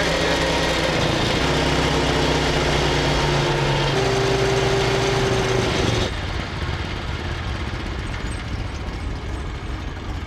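2017 Rokon Ranger two-wheel-drive motorcycle's small single-cylinder engine running under way, its note stepping in pitch a few times. About six seconds in, the sound cuts to a quieter, hissy engine-and-road sound with no clear note.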